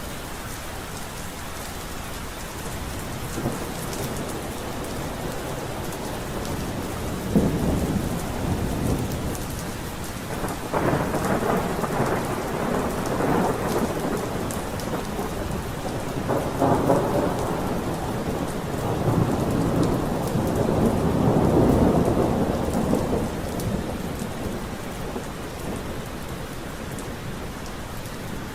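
Steady heavy rain with a long roll of thunder: it starts with a crack about seven seconds in, rumbles on in several swells, peaks about three quarters of the way through, then dies away under the rain.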